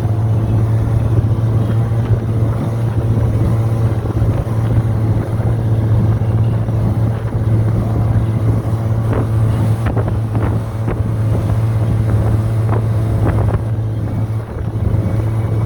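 Old motorboat engine running steadily at speed with the boat under way, an even low drone, with wind buffeting the microphone.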